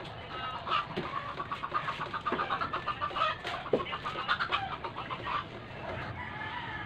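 A chicken clucking in a fast run of short, repeated calls, with a couple of soft knocks.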